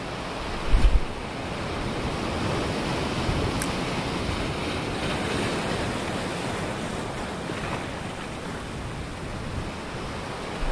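Sea surf breaking and washing over a rocky reef shore: a steady, even rush of water. A brief low thump comes about a second in.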